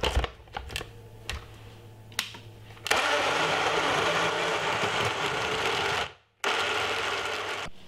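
Personal bullet blender: a few clicks and knocks as the cup is seated and locked onto the motor base, then the motor starts about three seconds in and runs steadily, blending peanuts, oats and almond milk. It stops for a moment near six seconds in, then runs again.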